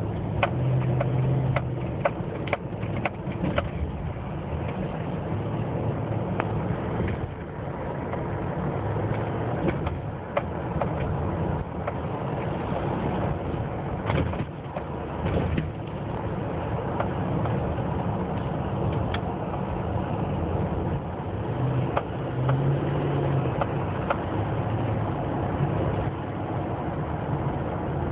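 Steady engine and road noise of a pickup truck cruising at about 35–40 mph, heard from inside the cab. A few sharp clicks or rattles come in the first few seconds.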